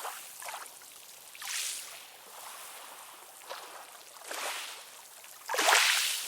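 Ocean surf: a steady hiss of waves washing in, swelling in surges, with the loudest wave breaking near the end.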